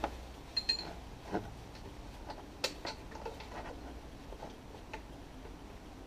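Faint, scattered small clicks and scrapes of a bolt being threaded in by hand into a car's auxiliary belt tensioner mounting, a gloved hand rubbing against engine parts, with one light metallic ping under a second in.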